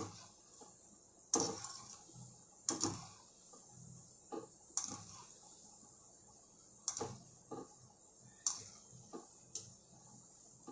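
Wire-mesh skimmer knocking and scraping against the side of a metal kadai, about nine irregular sharp knocks, while gulab jamun balls are turned in hot oil. Under the knocks is the faint sizzle of the oil frying.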